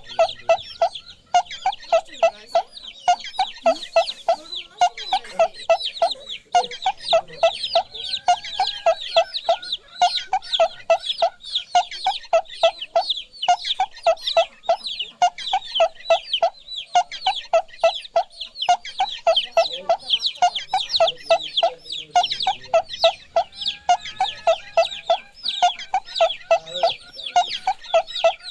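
Chickens calling nonstop. Many high, falling peeps, typical of chicks, run over a steady string of short, rapid clucks at about four a second.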